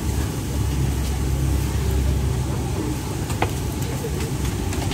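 Outdoor street-market ambience: a steady low rumble under faint chatter of a crowd, with one brief sharp click about three and a half seconds in.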